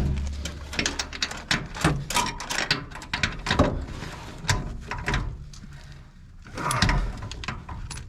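Irregular knocks, clunks and scrapes of objects being handled and moved about, as in rummaging for a bottle of brake fluid.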